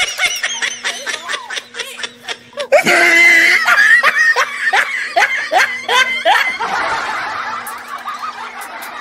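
A group of women laughing hard in quick repeated bursts, breaking into loud, high shrieks of laughter about three seconds in.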